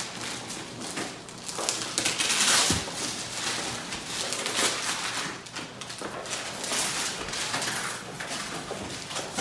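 Paper rustling and tearing as a gift is unwrapped, with tissue paper and a small cardboard box handled in irregular crinkly bursts, loudest about two seconds in.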